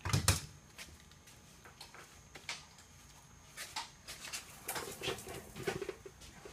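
Plastic engine undercover being slid out from under the car and handled: a knock at the start, then scattered light clicks and scrapes with a few dull thumps near the end.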